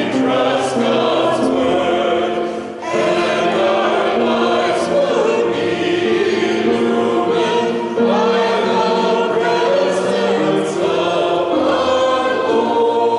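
A small mixed choir of men's and women's voices singing a hymn, with short breaks between phrases about three and eight seconds in.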